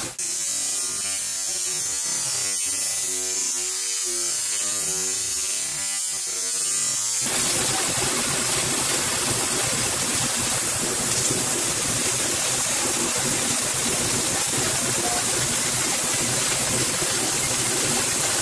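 6 kW IPG fiber laser cutting 1-inch carbon steel: a steady hiss of the cutting jet and sparks. About seven seconds in the tone changes abruptly, from a thinner hiss with a shifting, hollow colour to a fuller, even hiss.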